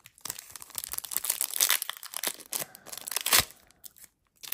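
Foil wrapper of a Topps Chrome baseball card pack crinkling and tearing as it is ripped open by hand, with a few sharp louder crackles.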